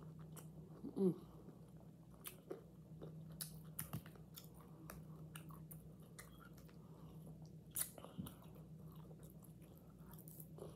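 Close-up eating sounds: a person chewing and biting forkfuls of food, with scattered sharp clicks and mouth smacks, and a brief hum of the voice about a second in.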